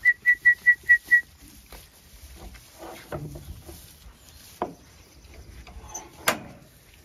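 Six quick, short whistle pips at one high pitch in just over a second: a whistled signal to the sheepdog. Sheep shuffle about in straw afterwards, and a single sharp click sounds near the end.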